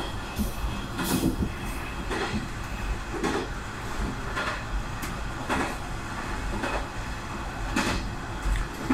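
Diesel railcar running along single track, heard from inside at the front: a steady rumble with a knock from the wheels over the rail joints about once a second.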